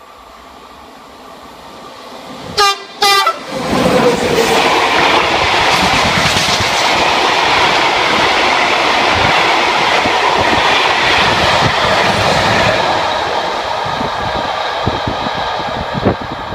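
SNCF BB 7300 electric locomotive sounding two short horn blasts as it approaches, then a freight train of open and tank wagons rumbling past at speed. Near the end the sound eases off, with wheels clicking over rail joints.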